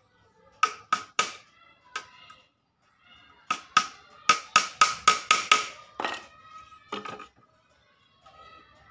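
Small hammer tapping thin bars into a bird cage's frame: a few sharp knocks early, then a quicker run of about ten taps, up to about four a second, that stops about seven seconds in.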